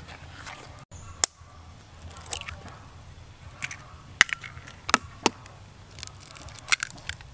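A metal spoon scraping through dry flour in a plastic bowl, then a series of sharp taps and clicks as an egg is knocked and cracked open over the bowl.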